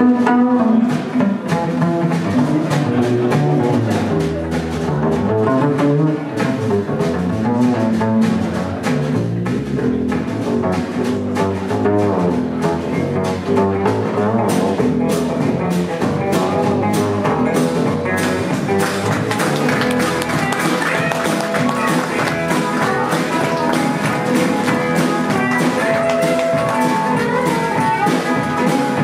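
A live acoustic blues band playing a song without vocals, led by a resonator guitar over a plucked upright double bass with a steady beat.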